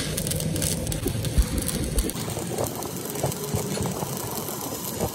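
Stick (shielded metal arc) welding on a steel truck shaft: the arc crackling and sizzling steadily as the electrode is run along the worn shaft end. A low hum lies underneath for the first two seconds.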